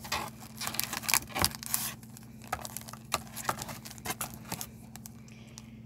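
Clear plastic packaging sleeve crinkling and rustling as a pack of paper mini cards is handled. The crackles come thick for about the first two seconds, then sparser.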